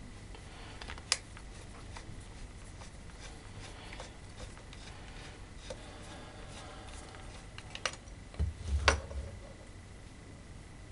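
Sparse small clicks and knocks of a screwdriver working inside the plastic body of a hand blender as it is taken apart, with a louder cluster of clicks and dull thumps about eight to nine seconds in.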